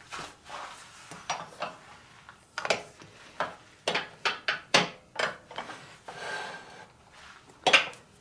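Irregular knocks, taps and scraping of hard objects being handled and set down on a workbench, with one louder knock near the end.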